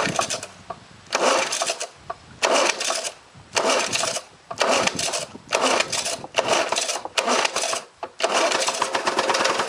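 1977 Lawn-Boy mower's two-stroke engine being pull-started: the recoil starter is yanked over and over, about once a second, and the engine turns over and tries to catch. Near the end a longer burst comes, as if the engine fires.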